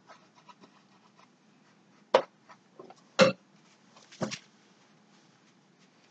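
Paintbrush strokes on a canvas, faint and scratchy. Three short, sharp knocks about a second apart stand out above them.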